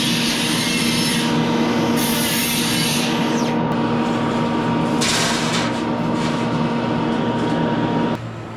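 Electric grinder working steel: a steady motor hum under rough grinding noise that swells and eases, switched off about eight seconds in.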